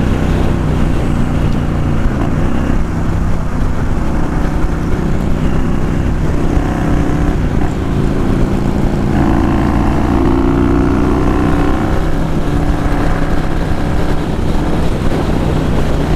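Yamaha Road Star Warrior 1700's air-cooled V-twin running at highway cruising speed, with wind rush on the helmet microphone. The engine note shifts about nine seconds in.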